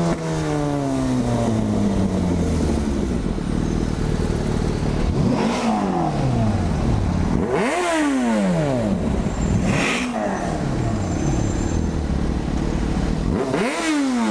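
Yamaha FZ6's inline-four engine through an aftermarket dual carbon exhaust, blipped four times over a steady idle, each rev rising sharply and falling straight back.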